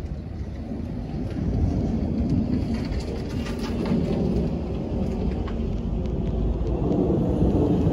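Jet airliner flying overhead: a low rumble of its engines growing steadily louder.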